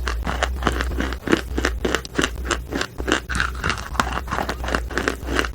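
Someone chewing chalk close to the microphone: a steady run of soft crunches, about three to four a second.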